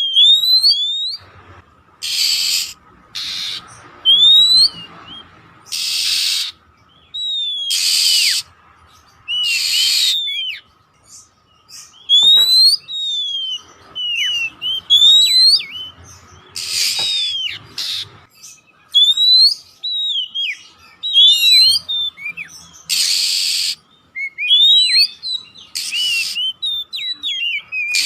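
Oriental magpie-robin (Kacer poci) singing: quick rising and falling whistled notes, broken every couple of seconds by loud, harsh rasping bursts about half a second long.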